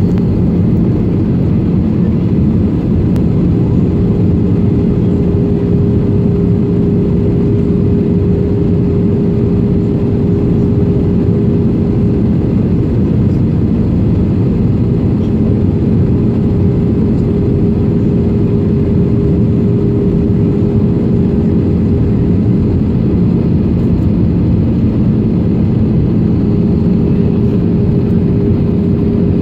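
Steady cabin noise of a jet airliner on approach, heard from a window seat over the wing: a low, even rumble of airflow and turbofan engine with a constant hum running through it.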